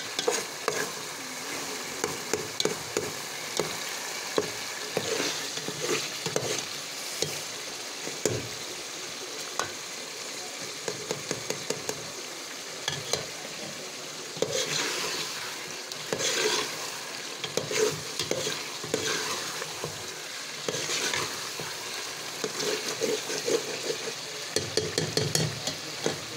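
Chicken karahi sizzling in a metal pot, stirred with a metal spatula that scrapes and clicks against the pot in frequent, irregular strokes over a steady frying hiss.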